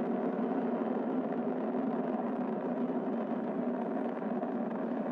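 Steady, even noise of a Falcon 9 rocket's first stage, its nine Merlin engines firing during ascent shortly before the throttle-down for maximum aerodynamic pressure.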